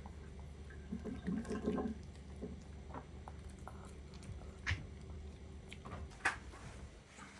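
Long-coat Chihuahua licking and eating from a small ceramic bowl, making wet licking and lapping sounds. Two sharp clicks against the bowl come in the second half.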